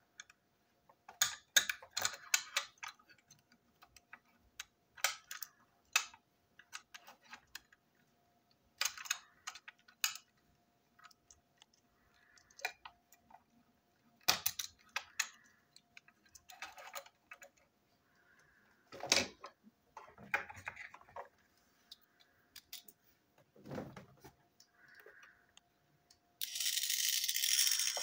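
Small plastic parts of a Stephen the Rocket toy train clicking and clattering as it is taken apart by hand, in scattered bursts of sharp clicks. Near the end a steady buzzing rattle starts.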